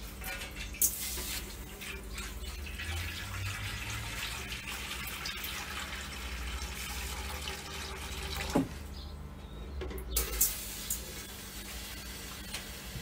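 Water pouring from a plastic jerrycan into the smoker's metal water pan, a steady splashing for about eight seconds that then stops. A few short knocks follow near the end.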